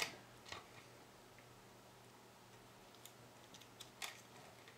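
Faint clicks of small plastic wire connectors being pushed onto the pin headers of a blaster's controller board, a sharp click at the start and another a little after four seconds, over near silence.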